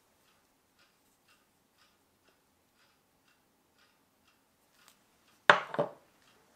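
A copper coin set down on a wooden board: two sharp clacks about a third of a second apart, near the end. Before it, a faint, even ticking at about two a second.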